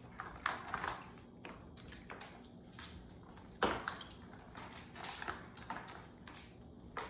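Crab leg shells being cracked and peeled apart by hand: a scatter of short, sharp cracks and snaps, the loudest about three and a half seconds in.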